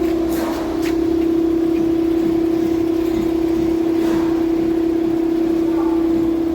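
Front suspension of a Ford Explorer knocking and creaking a few times as the steering is turned from side to side, the sign of worn front strut (shock absorber) mounts and sway-bar bushings. A steady hum from the running vehicle sounds underneath throughout.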